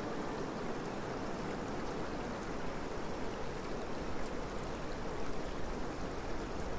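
Shallow stream water flowing steadily over gravel and stones.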